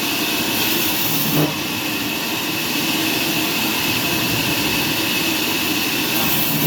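Sawmill machinery running steadily, with a constant high whine over a hiss. There is a brief knock about a second and a half in, and another near the end.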